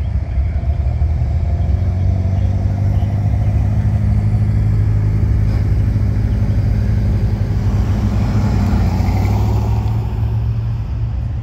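Cars driving slowly past, with a deep, steady engine rumble from a red Ford F-150 pickup as it rolls by. The sound eases off near the end.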